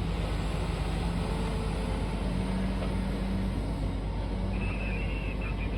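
Heavy diesel mining machinery running steadily: a constant low engine drone and rumble with no sharp events.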